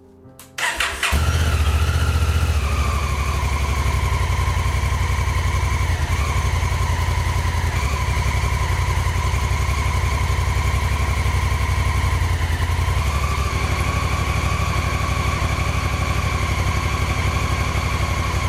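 Honda Africa Twin's parallel-twin engine started with a brief crank about a second in, then running at a steady idle, the idle dropping slightly in pitch over the first couple of seconds before it settles.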